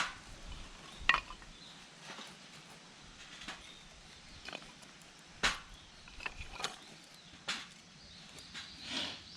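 Wood campfire crackling: sharp, irregular pops about once a second over a faint steady hiss.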